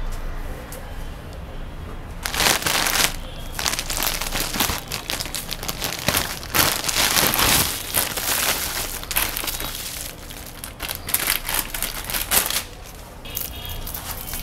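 Clear plastic zip-lock bag and foil-wrapped lollipops crinkling as they are handled and tipped out onto a pile, in irregular bursts, loudest about two and a half seconds in and again around seven seconds.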